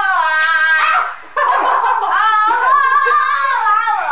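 A girl's high-pitched, wordless vocalising, the pitch sliding up and down in long squeals, with a short break about a second in.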